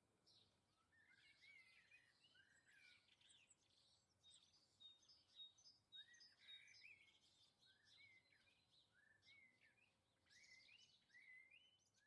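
Faint birdsong: several small birds chirp and whistle in short rising and falling phrases, with one steady whistled note a little after four seconds in.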